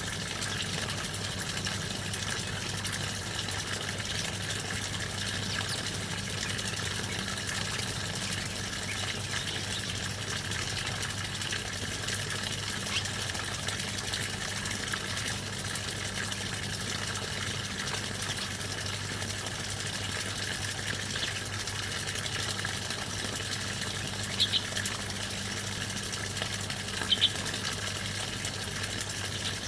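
A few short, high bird chirps, the clearest two near the end, over a steady low hum and rushing background.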